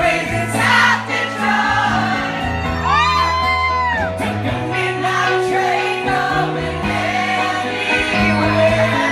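Live band performance: two male singers with a guitar over steady bass notes, with a long held note that bends in pitch about three seconds in.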